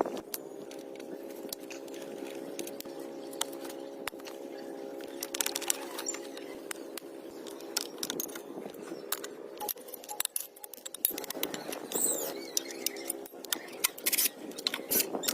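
A small electric motor running with a steady hum that briefly drops out about two-thirds of the way through, under scattered light metallic clicks and rattles.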